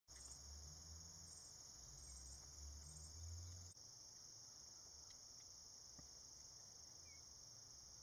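Faint, steady high-pitched insect chorus, with a low rumble underneath that stops abruptly a little before halfway, followed by a few faint ticks.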